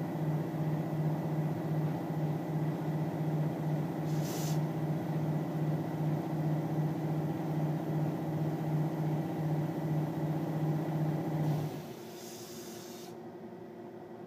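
Milling machine engraving lettering into a metal case plate: a steady, evenly pulsing low hum from the spindle and cut, with a short hiss about four seconds in. Near the end the pulsing hum stops, leaving a quieter steady drone, and a second short hiss follows.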